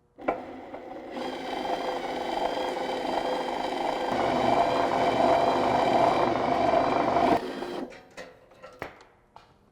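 Power drill driving a BWS-38-MF-DA wire stripping machine, pulling a solid 14-gauge Romex conductor past the blade that slits its insulation. The motor runs steadily, grows louder about four seconds in, and stops suddenly after about seven seconds, followed by a few light clicks.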